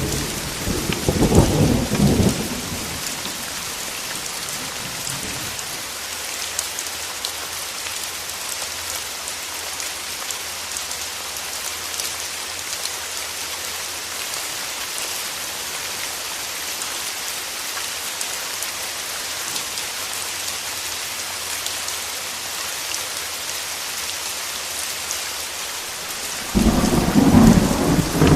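Steady rain with thunder. A rumble of thunder sounds near the start and another begins a couple of seconds before the end.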